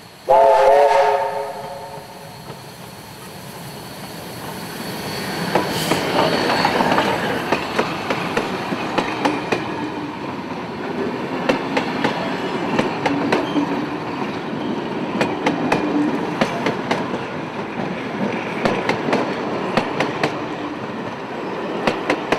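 NSW 35 class steam locomotive 3526 sounds one loud whistle blast of several tones, about a second and a half long, just after the start. The engine then passes close by, followed by its heritage Pullman carriages, their wheels clicking steadily over the rail joints as the train goes by and fades away near the end.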